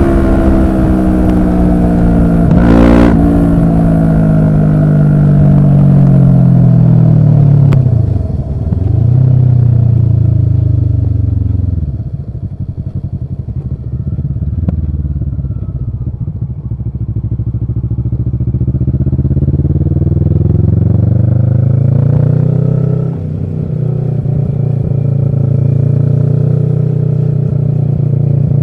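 Kawasaki ER-6n 649 cc parallel-twin with an Arrow exhaust, heard while riding: the engine note falls as the bike slows, with short breaks in the sound around 8 and 12 seconds, runs low and steady for a while, then climbs under acceleration with a brief break near 23 seconds before pulling on.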